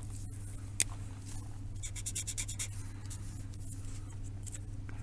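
Drawing marker making a brief run of quick scratchy strokes on paper about two seconds in, after a single click just under a second in, over a steady low hum.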